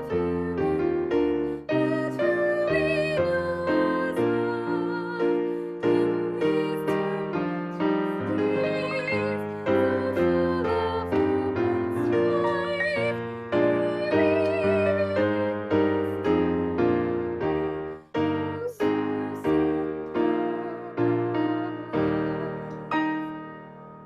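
Piano playing a slow piece with evenly struck notes and chords. A last chord dies away near the end.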